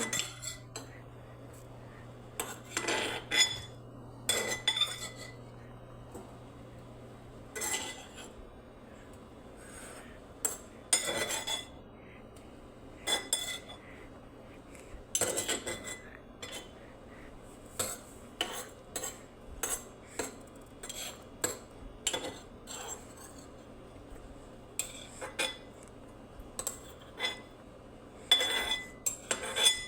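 A spoon clinking and knocking against dishes: short, irregular strikes, sometimes several in quick succession, each with a brief ringing, as food is moved into a dish.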